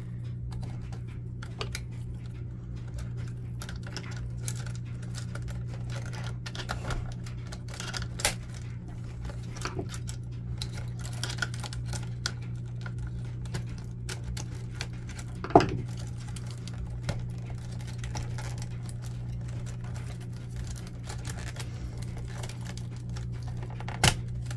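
Small clicks and taps of hands and a screwdriver working wires and cable connectors loose from a printer's main board, with a sharper click about two-thirds through and another near the end, over a steady low hum.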